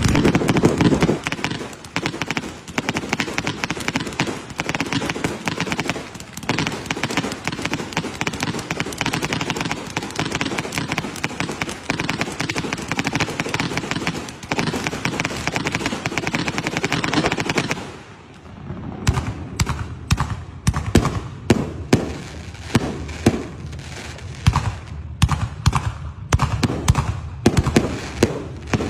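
Fireworks display: a dense, continuous crackling of many small reports from crackling stars and sparking fountains, with a deep boom at the start. About two-thirds of the way through it gives way to a run of separate sharp bangs, a few a second, from bursting shells.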